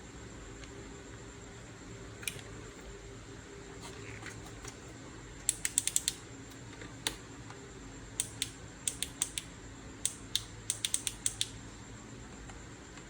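Sharp little clicks and taps of small hard parts being handled, some singly and some in quick clusters of several, over a faint steady hum.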